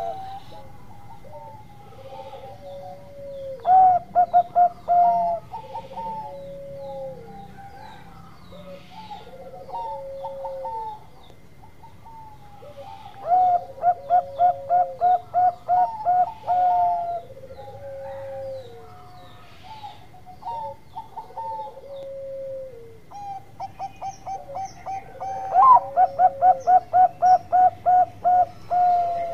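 Bangkok-type zebra dove (perkutut) cooing: three bouts of its rapid staccato trill of repeated notes, with slower, falling coos about every two seconds in between.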